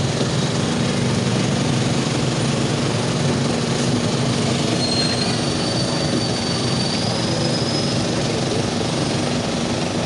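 Steady din of a large open-air crowd, a continuous rumbling noise with no single sound standing out, and a faint high whistle-like tone about halfway through.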